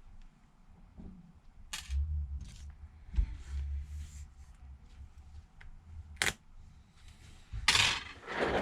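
Small tools and parts handled on a repair bench: a few sharp clicks and taps, about a second in, near six seconds and again near the end, with low bumps between them.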